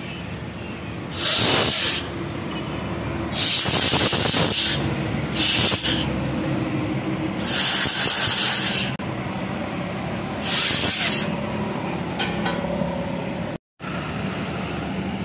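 Compressed-air blow gun fired in five short blasts of hiss into the cylinder bore of a 30-ton hydraulic jack, blowing it clean, over a steady machine hum. Near the end the sound cuts to road traffic noise.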